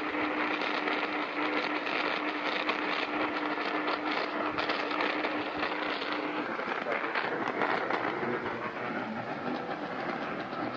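Radio static and interference on an off-air broadcast receiver, with another station bleeding in over the wanted one. A steady low tone runs through the hiss and stops about six and a half seconds in.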